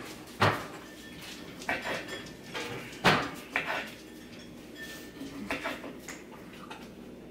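Dishes and utensils clinking and knocking: about half a dozen separate sharp clatters, the loudest about three seconds in.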